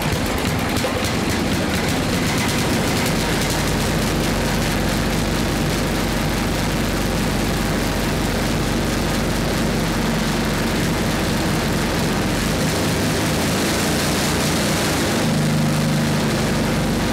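The 8 hp single-cylinder Briggs & Stratton engine of a 1979 Toro 826 snowblower starts up and runs steadily at about mid-throttle with the choke on. About fifteen seconds in, its note changes.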